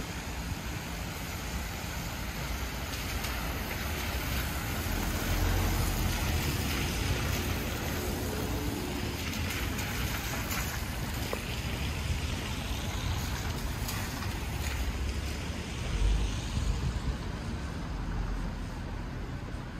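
City street ambience: a steady hum of traffic, with passing vehicles swelling the low rumble twice.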